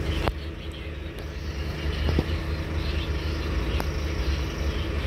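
Diesel engine of a Scania-chassis Alexander Dennis Enviro 300 single-deck bus, heard from inside the saloon as a steady low drone. It picks up again about two seconds in, and there is a sharp click near the start and a few faint interior rattles.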